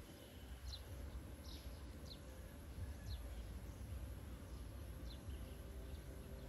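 Faint, short, high chirps from a small animal, each falling in pitch, scattered roughly once a second over a steady low rumble.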